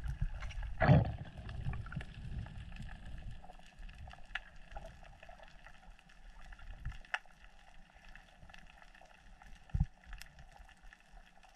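Muffled underwater sound of a diver moving through the water, heard through the camera housing: low water rushing with a dull thump about a second in, fading after a few seconds to faint scattered clicks, with another low thump near the end.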